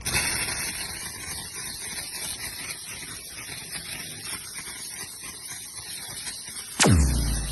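A steady hiss. Near the end a sudden loud sound sweeps down in pitch and fades.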